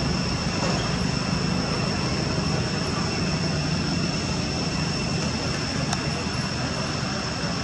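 Steady outdoor background noise: a low rumble and hiss that never changes, with two constant high-pitched tones above it.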